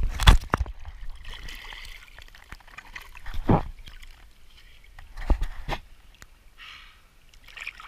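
Sea water splashing as a camera breaks the surface, loudest in the first half second, then small waves slapping and water running and dripping, with a few more sharp splashes about three and a half and five seconds in.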